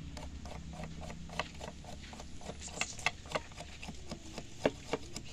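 A knife whittling the end of a thin wooden stick to a point: a run of short, irregular scrapes and ticks as the blade cuts into the wood, over a low steady rumble.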